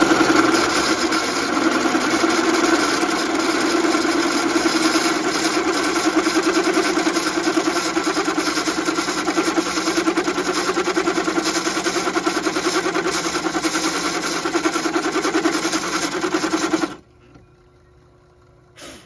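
An old drill press running under load as its twist bit bores a water-jacket hole through a cast cylinder head. It sounds like a steady motor whine with a fast, even chatter from the cutting, and cuts off suddenly about 17 seconds in. A short click follows near the end.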